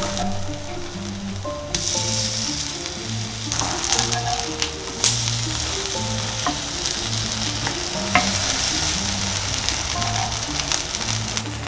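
Cockle and water-parsley pancake batter sizzling in plenty of hot oil in a frying pan, the sizzle growing stronger about two seconds in, with a couple of sharp clicks along the way. Background music plays underneath.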